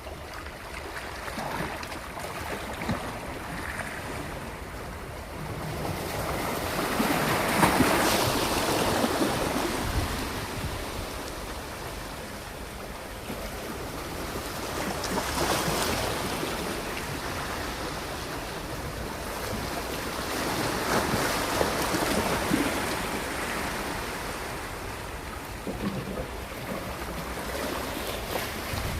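Sea waves washing in against the shore, swelling and easing about every six or seven seconds, with wind on the microphone.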